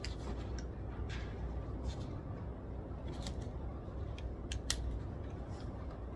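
Steady low room hum with a series of short, sharp clicks and snips scattered through it, the loudest a little before five seconds in: small desk-work sounds such as scissors, pen or paper.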